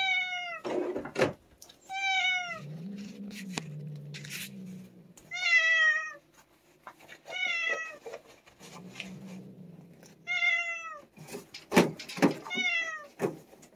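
Cat meowing repeatedly, six calls about two seconds apart, each falling in pitch. A low rumble sounds between some of the calls, and there are a few sharp knocks.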